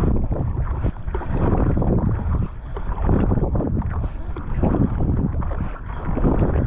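Fast kayak paddle strokes, a Werner Cyprus paddle's blades splashing in and pulling through the water in repeated surges, under heavy wind noise on the microphone.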